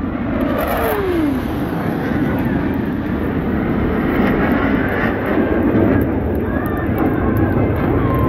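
Blue Angels F/A-18 Hornet jets flying past low with a loud, steady jet roar. About a second in, the pitch drops as one jet passes by.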